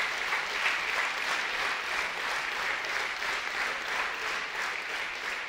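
Audience applauding steadily with many hands clapping, easing off slightly near the end.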